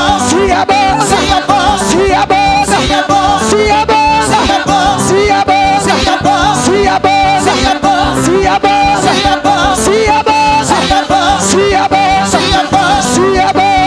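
Gospel worship music with a steady beat and singing.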